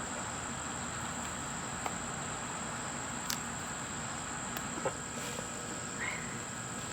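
Insects chirring in a steady, unbroken high-pitched drone, with a few faint clicks.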